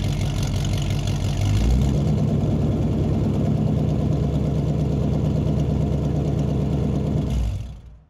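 An engine idling steadily with a lumpy, even beat. It shifts slightly higher about two seconds in and fades out near the end.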